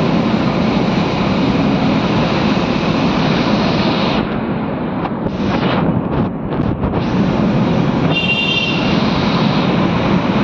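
Container freight train's wagons rolling past close by: a loud, steady rumble and clatter of wheels on rail. A brief high tone sounds about eight seconds in.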